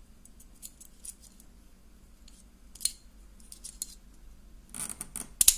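Light metal clicks and scrapes from the recoil spring and its plastic guide rod being fitted into a Sig Sauer SP2022 pistol slide over the barrel, with a louder cluster of clicks near the end.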